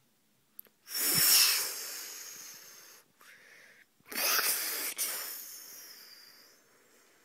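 Two breathy, hissing 'pshh' noises made with the mouth, one about a second in and one about four seconds in. Each starts sharply and fades away over about two seconds.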